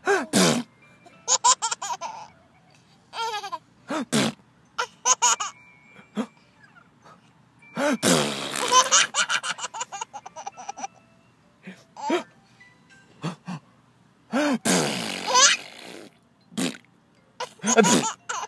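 Laughter at a sneeze, coming in repeated fits with short pauses between, the longest and loudest about 8 and 14.5 seconds in.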